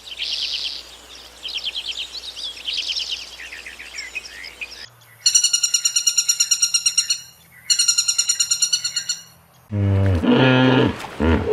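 Birds chirping with quick high trills, then two long, rapid, evenly pulsed trills with a short break between them. About ten seconds in, a louder, lower-pitched animal call begins.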